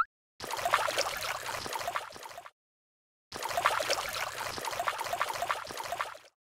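Sound effect of water gushing and gurgling, heard in two stretches of two to three seconds each with a silent gap between, as muddy water runs out of a pipe.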